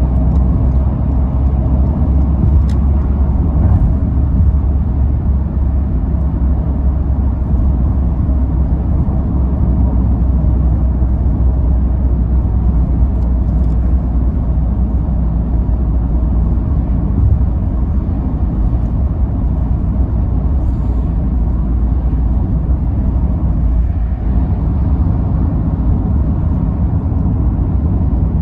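A car driving at motorway speed, heard from inside the cabin: a steady, loud, low road rumble.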